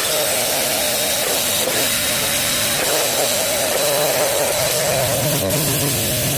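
Chainsaw running steadily and loudly as it cuts through a fallen fir log.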